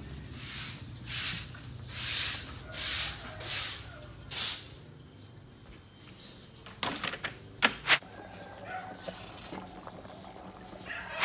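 Someone walking while carrying a plastic basket of bottled water: about six swishing scuffs, roughly one every 0.8 seconds, over the first four seconds. A little past halfway come a few sharp plastic knocks as the basket is handled and set down.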